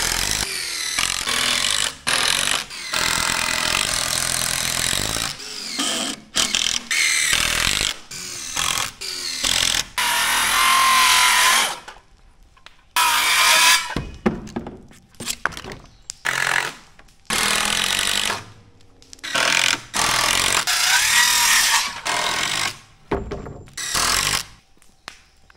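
Handheld power tool running in repeated bursts of one to two seconds with short pauses between them, its motor pitch shifting within each burst.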